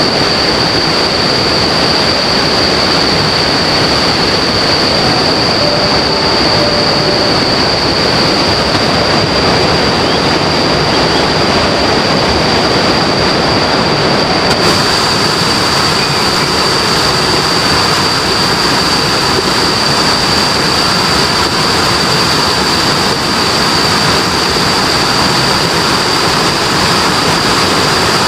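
River water rushing steadily, with a steady high-pitched tone running over it.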